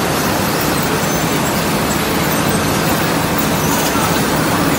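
Steady, loud din of factory machinery: chain-driven conveyors carrying rows of coated welding rods.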